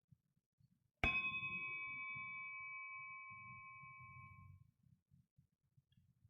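A breathing bell struck once, ringing with a clear high tone that fades away over about three and a half seconds. It is rung as a cue for the congregation to breathe together.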